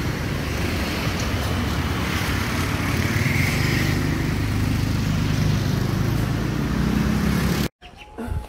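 A motor vehicle's engine running steadily, a low hum under a haze of road noise.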